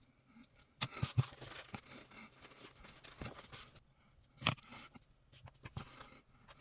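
Small hand work on parts at a workbench: about three seconds of scraping or rubbing with a few sharp clicks, then a single loud click and several lighter taps.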